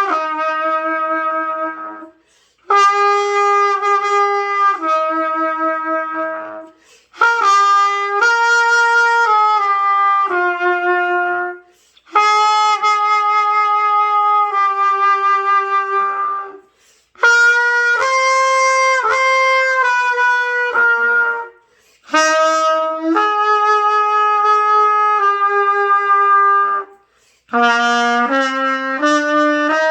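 Solo trumpet playing a slow hymn tune in long held notes. The phrases last about five seconds each, broken by short pauses for breath.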